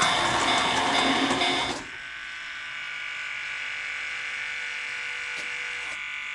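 O-gauge model train running along the track with rapid clicking for about the first two seconds, then the train noise drops away and a steady electronic buzzing tone, the model railroad crossing's warning signal, carries on alone.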